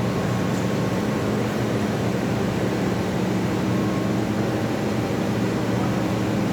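Absorbent cotton machine running with a steady, even mechanical hum.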